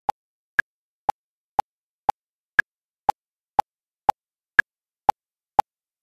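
Metronome ticking steadily at two clicks a second, every fourth click higher pitched as the accented beat.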